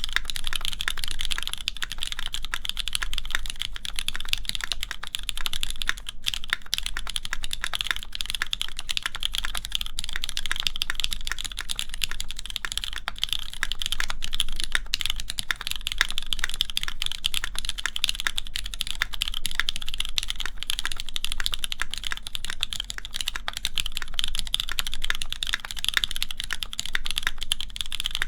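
Continuous fast typing on a mechanical keyboard with lubed Cherry MX Black linear switches, an aluminium plate and GMK keycaps: a dense, steady stream of keystrokes, with a faint low hum underneath.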